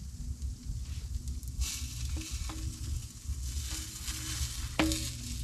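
A pizza slice sizzling on the hot steel top of a wood stove, the hiss swelling about a second and a half in, with a few light clicks as the slice is shifted by hand over a steady low rumble.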